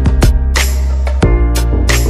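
Background music with a beat: sharp drum hits over sustained bass and pitched notes.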